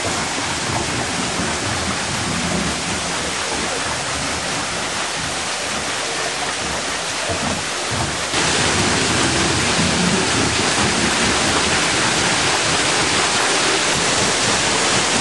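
Water rushing and splashing at a working corn mill's waterwheel, a steady noise that gets louder about eight seconds in.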